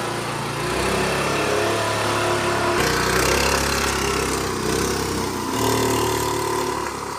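Small motor scooter engine running steadily while riding. Its note jumps abruptly to a different pitch twice, about a third and two-thirds of the way through.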